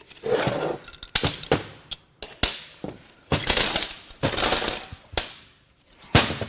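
Metal clattering and sharp clanks as a Honda J35 V6 cylinder head is lifted, tipped and knocked about on a metal workbench, with loose valve springs and keepers rattling out of it. It comes as several rattling spells and a handful of single sharp knocks.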